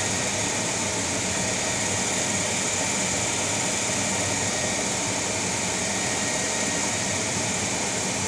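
Cue lathe's motor running steadily as it spins a cue shaft: an even mechanical hum with a faint high whine.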